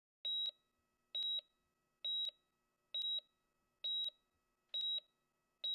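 Hospital patient monitor beeping steadily: short high-pitched beeps, evenly spaced a little under a second apart.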